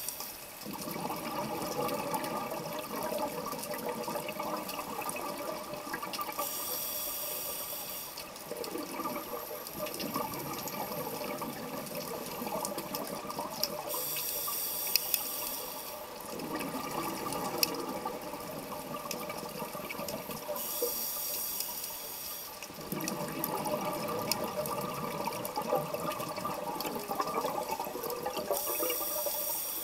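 Scuba diver breathing through a regulator: a short hiss on each inhalation, four times about every seven seconds, alternating with longer stretches of bubbling from the exhaled air.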